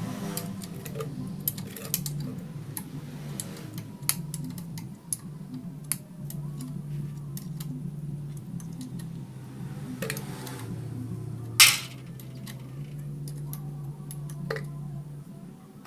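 Metal tools and engine parts clinking and tapping while a Honda Grand motorcycle's cylinder head is being taken apart: scattered light clicks, with one louder, longer clatter about three-quarters of the way through, over a steady low hum.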